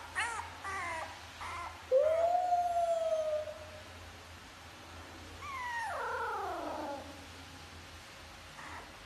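French bulldog puppy calling: a few short whining yips, then one long drawn howl-like call about two seconds in, and a whine that slides down in pitch around the middle.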